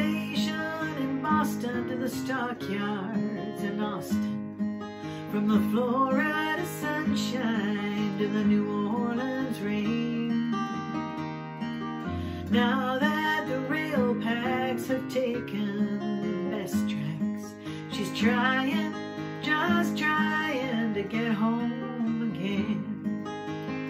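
A woman singing a slow country ballad, accompanying herself on acoustic guitar.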